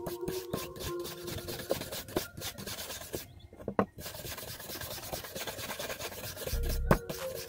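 A flat wooden stick rubbed quickly back and forth over a rusty steel knife blade, scrubbing off rust, each stroke a short rasping scrape. The strokes pause briefly a little past halfway, then resume.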